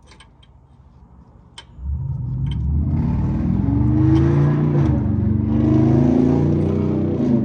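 A few light metal tool clinks, then from about two seconds in a loud motor starts running, its pitch rising and falling as it works.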